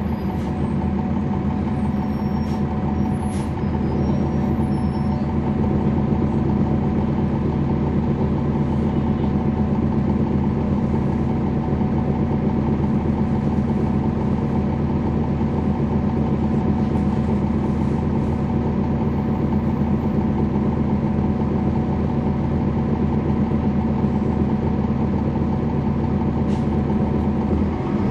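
Cummins ISL9 diesel engine of a 2011 NABI 416.15 transit bus, heard from on board, running at a steady speed with an even hum that holds one pitch throughout.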